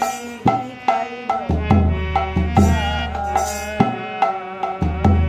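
Bengali folk song: a hand drum plays a brisk rhythm of sharp strokes and deep bass strokes, over sustained harmonium tones, with a woman singing the melody.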